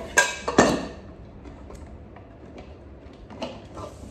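Metal pressure cooker pot and lid clanking as they are handled: two sharp knocks with a brief ring, about half a second apart, then a few light clicks about three and a half seconds in.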